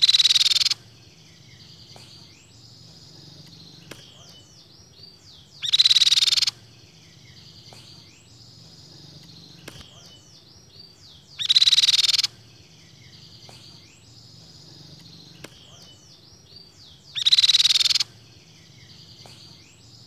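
Crescent-chested babbler (tepus pipi perak) giving a loud, harsh call four times, evenly about every six seconds, each under a second long. Faint chirps and whistles continue between the calls.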